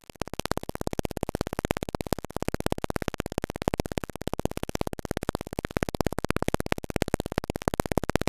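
Sonification of the radio signal from pulsar PSR B1933+16: a fast, even train of clicks over a noisy hiss, each click one pulse from the spinning neutron star.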